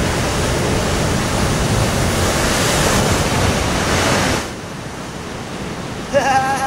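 Large ocean wave crashing: a loud rush of surf for about four seconds that drops suddenly to a quieter wash of water.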